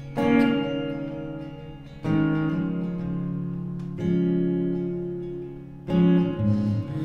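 Song's instrumental gap: acoustic guitar chords, strummed about every two seconds and left to ring out between strums.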